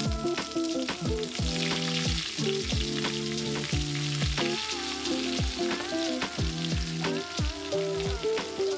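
Hanger steak sizzling in foaming butter in a frying pan while the butter is spooned over it. Background music with a steady beat plays over it.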